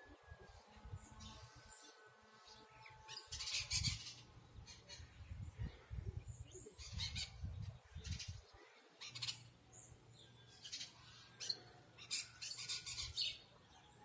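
A foraging flock of small birds chirping in short clusters of quick high calls, loudest about four seconds in and again near the end, over a faint low rumble.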